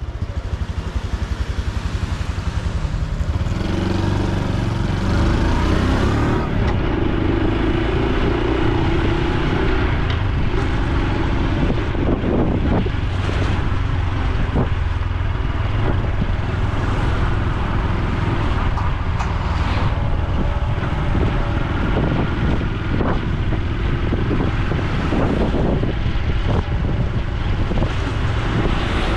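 Honda Super Cub C125's air-cooled single-cylinder four-stroke engine and exhaust running steadily on the road, the revs rising and falling a few times.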